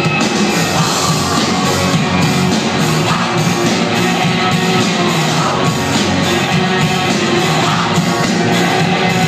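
Live rock band playing loudly, guitars and drums with a steady beat, heard from within the crowd in a club.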